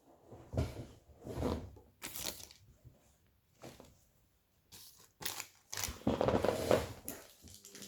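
Plastic toy packaging being handled and torn open by hand, crinkling and rustling in irregular bursts.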